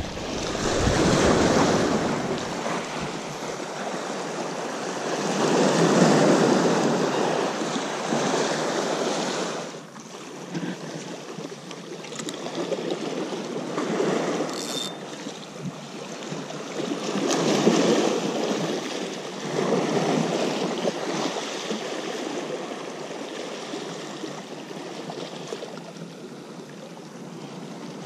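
Sea waves washing against the shore, with wind, rising and easing in broad surges every few seconds.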